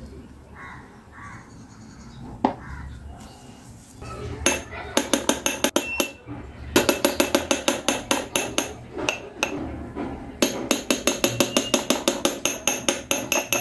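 A metal spoon tapping rapidly against the rim of a drinking glass full of ice, knocking off thick whipped coffee: long runs of sharp clinks, several a second, starting about four seconds in.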